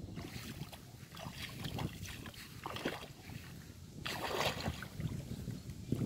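Water sloshing and splashing as a man wades into shallow river water, over the steady rumble of wind on the microphone. The loudest splash comes about four seconds in.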